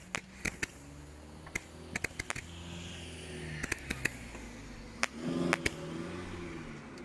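Broekhoff Multicolor Parade, a Category F2 consumer firework, burning with a hiss and sharp crackling pops scattered throughout, louder for a moment about five and a half seconds in.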